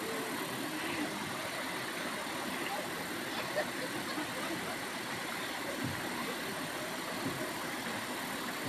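Steady rushing of a shallow river running over rocks, with a few faint knocks.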